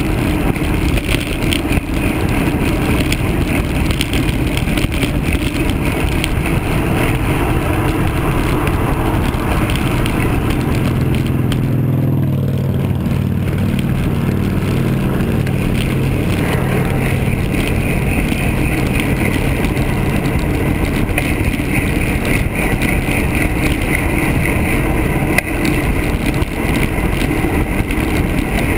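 Steady rushing wind noise and tyre hum from a road bike riding at speed, picked up by a handlebar-mounted camera. About twelve seconds in, a motor vehicle passes, its engine note dropping in pitch as it goes by.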